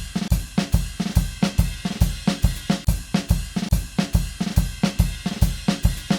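Drum kit playing a steady beat of kick and snare with cymbals: a drums-only music intro.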